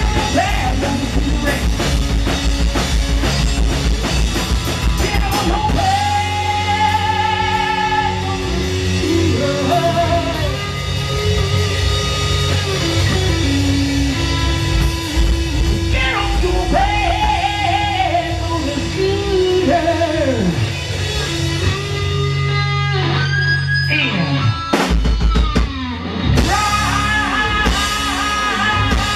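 Live rock band playing with drum kit, bass and electric guitar. The guitar's notes slide and bend up and down in long glides.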